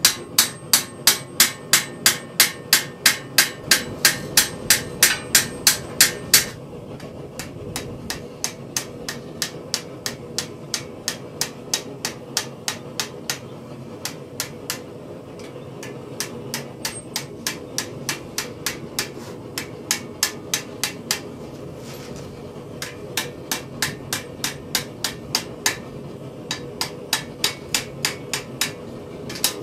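Blacksmith's hand hammer striking a steel acanthus leaf over a stake in a steady rhythm of about three blows a second. The first six seconds of blows are louder and ringing; after that the blows are lighter, with a few short pauses.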